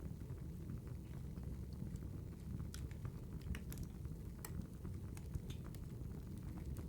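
Wood fire crackling: a steady low rumble with sparse, irregular sharp pops and crackles.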